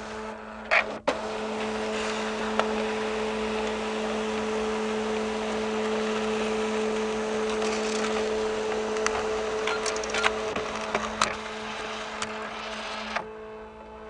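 Fax machine receiving and printing an incoming fax: a steady motor whir and hum with occasional mechanical clicks. Near the end the whir drops away, leaving only the hum.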